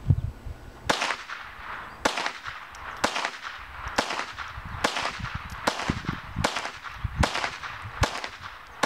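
Marlin 795 semi-automatic .22 LR rifle fired about ten times at a steady pace of roughly one shot a second, emptying a 10-round magazine. Each shot is a sharp crack with a short ringing tail.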